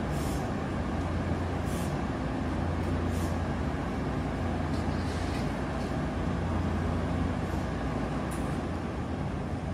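JR West 323 series electric train standing at the platform, its onboard equipment giving a steady low hum, with several short hisses.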